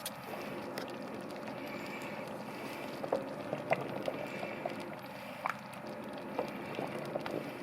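Thick blended pea and ham soup simmering in a casserole pot, with scattered small bubble pops over a steady hiss.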